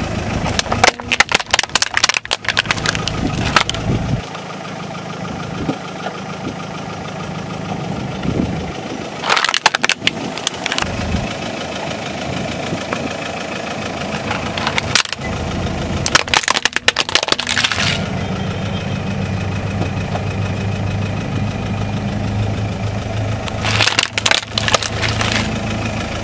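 A car tyre rolling over and crushing crunchy objects: several clusters of sharp cracking and crunching, over the steady hum of the car's idling engine.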